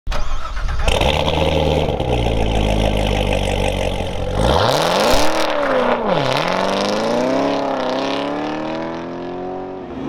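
A car engine held at steady revs, then launching hard about four and a half seconds in: the pitch climbs sharply, drops at a gear change about six seconds in, and climbs again as the car accelerates through the next gear.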